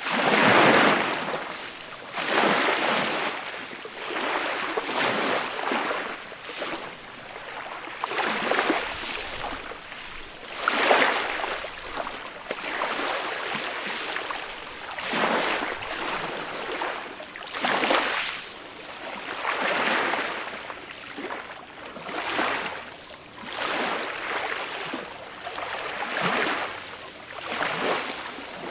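Small, gentle sea waves breaking and washing up the beach, a hissing wash that swells and fades every two to three seconds.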